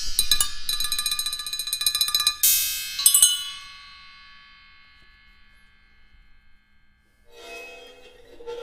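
Metal percussion struck in a fast roll, bright high ringing tones, with a few last strikes about three seconds in; the ringing then dies away slowly to near quiet. Near the end a lower, sustained sound with several tones comes in.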